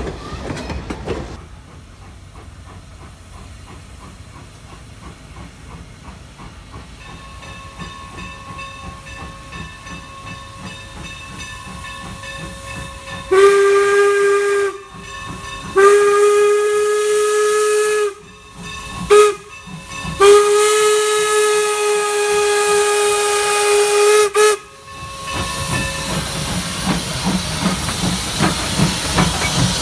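Norfolk and Western steam locomotive sounding its steam whistle as it approaches a grade crossing: two long blasts, a short one and a long one, the standard crossing signal. Then it passes close with a rising hiss of steam and rumble.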